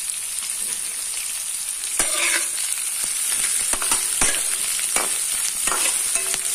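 Chopped onions and green chillies sizzling in hot oil in a metal kadai, just added to a tempering of mustard seeds, cumin, chana dal and curry leaves. A steady hiss of frying runs under short clicks and scrapes of a spatula stirring against the pan, one or two a second.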